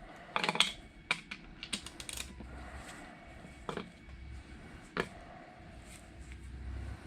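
Scattered metallic clicks and clinks of hand tools and loose strut parts being handled, with a quick cluster near the start and single clinks later.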